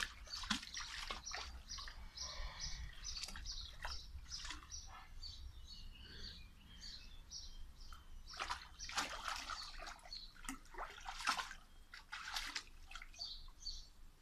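A dog pawing and splashing in a plastic paddling pool of water, in irregular splashes that are loudest about two-thirds of the way through. A bird chirps repeatedly in the background, mostly in the first third and again near the end.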